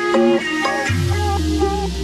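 Background music with a wavering melody line; a low sustained bass note comes in about a second in.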